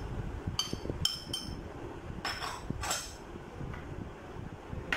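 A metal spoon clinking three times against a small dish, then scraping across it as chopped herbs are pushed off into a bowl.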